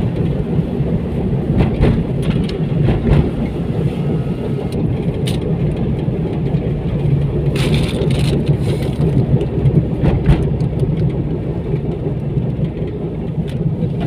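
Car driving, heard from inside: a steady low rumble of engine and tyres on the road, with a few brief knocks and rattles over the rough surface.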